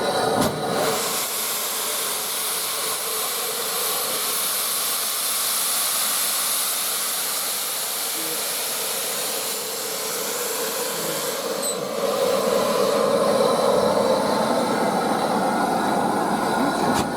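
Steam locomotive SR 34046 Braunton, a Bulleid West Country class Pacific, letting off a steady hiss of escaping steam, which gets louder about twelve seconds in.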